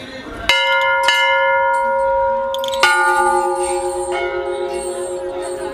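Metal temple bells rung: one is struck about half a second in and rings on steadily, then a lower-pitched bell is struck near the three-second mark and rings on over the first.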